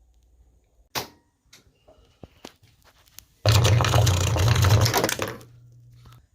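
Bosch 500 Series washer's drain pump switched on in drain mode: a click, then a loud low hum with heavy noise over it for about two seconds, settling to a fainter steady hum that cuts off near the end. The pump hums without draining; the owner traced the fault to the pump's magnet-driven impeller sitting too tight to turn.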